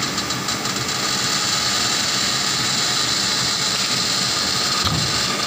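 Kobelco SK200 excavator's diesel engine running steadily under load with its hydraulics working, as it holds a large HDPE pipe on a chain. There is a dull thump near the end.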